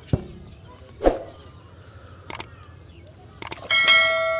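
Two dull thumps, then a pair of mouse clicks and a bright ringing bell chime from a subscribe-button sound effect that lingers as it fades.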